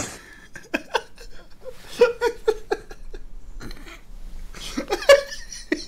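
A man laughing in a string of short, breathy bursts of chuckling.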